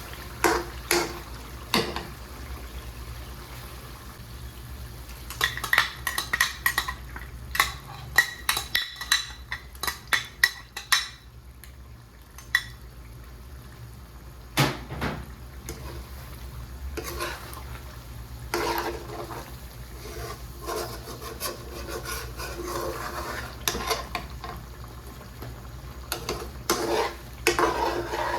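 Metal utensil stirring in a cooking pan, clinking and scraping against it, with a run of quick ringing clinks from about six to eleven seconds in and softer scraping later. A low steady hum runs underneath.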